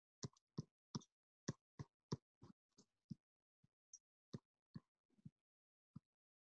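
Faint, rapid computer key or button clicks, about fifteen of them at two to three a second, as presentation slides are paged back one after another.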